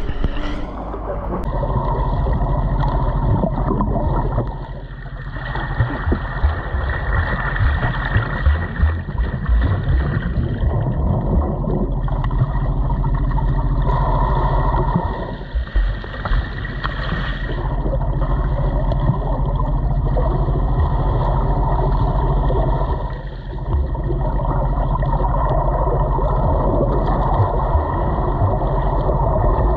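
A motor vehicle's engine running steadily under a heavy rushing noise, dropping away briefly three times.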